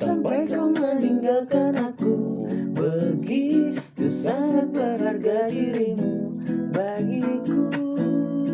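A pop ballad with strummed acoustic guitar and a sung melody line.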